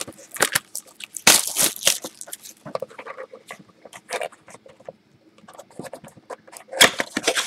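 Hands handling a cardboard Panini Playbook trading-card box: a run of short scrapes, taps and crinkly rustles, louder about a second in and again near the end.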